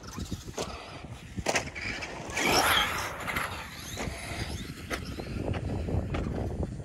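Traxxas Bandit electric RC buggy running over an asphalt pump track, its tyres rumbling with a string of knocks and clatters as it crosses the rollers, loudest about two and a half seconds in. Its battery is nearly spent, leaving the motor short of power.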